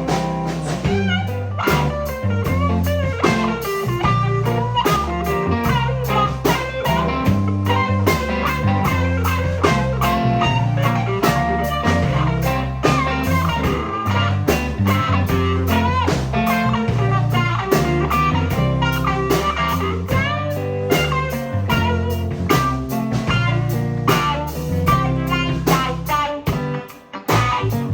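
Live band playing an instrumental break in a blues-rock song: guitar lines over bass and drum kit, with no singing. The music thins out briefly near the end before coming back in.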